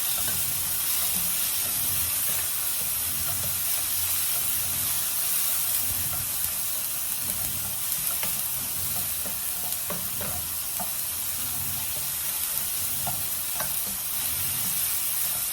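Chopped onion, garlic and tomato sizzling in hot oil in a frying pan while being stirred, with the utensil scraping and ticking against the pan now and then.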